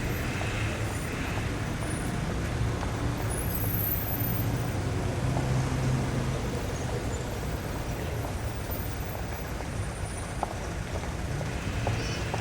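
City street traffic: a steady rumble of passing cars, buses and trucks, swelling for a few seconds and easing after about two-thirds of the way through.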